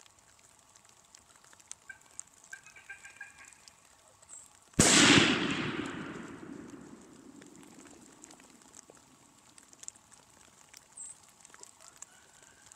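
A single shotgun shot about five seconds in, fired at a turkey gobbler, its report dying away over the next few seconds.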